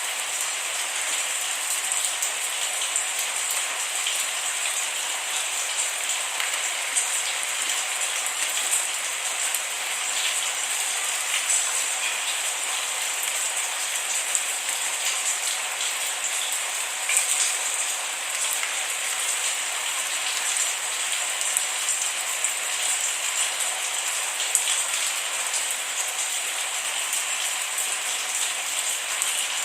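Steady rain falling, an even hiss with many small drops pattering on a surface, no thunder.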